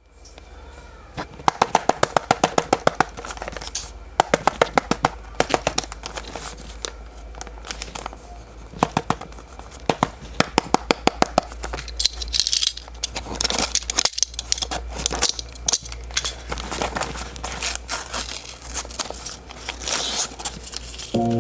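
Packaging being handled and opened, with crinkling, tearing and scraping, and quick runs of sharp clicks, over a steady low hum.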